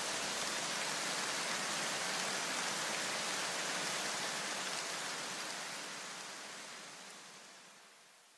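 A steady, even hiss like white noise with no tune or beat, fading away over the last three seconds.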